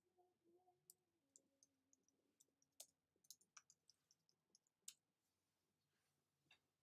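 Faint, irregular light clicks and taps, about twenty over some four seconds, with near silence around them.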